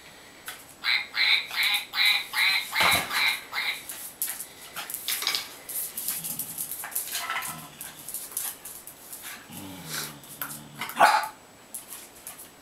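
A toy duck quacking in a quick regular series, about three quacks a second, for about three seconds. Later a dog, the wirehaired dachshund guarding the toy, growls low in two spells, and a single loud bark comes near the end.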